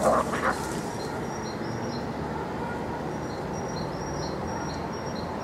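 Two cats fighting in long grass: a brief scuffle about the first half second, then steady rough noise while they square off, with faint repeated high chirps over it.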